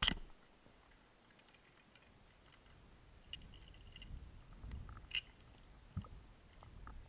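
Underwater, a speargun fires with one sharp crack, followed by scattered faint clicks and crackles and low water rumbles as the diver moves over the rocky bottom.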